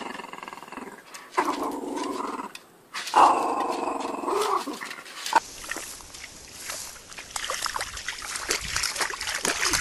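A small long-haired dog growling in three drawn-out bursts while tugging a rubber ring toy. About five seconds in, this gives way to a boxer pawing and splashing in a muddy puddle, with a dense run of short splashes.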